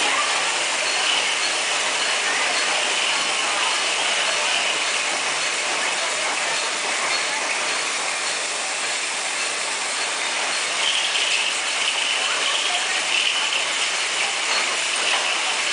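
Many loose aluminium caps clattering through a running cap-feeding line, an inclined elevator conveyor and feeder bowl for a cap knurling machine: a dense, steady rattle with no break.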